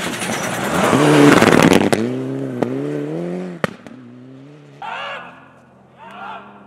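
Rally car passing at speed on a snow-covered stage, its engine revving hard with a rush of spraying snow, the engine note dropping and climbing again as it shifts gear, then fading as the car goes round the bend. Near the end, a few short calls from spectators.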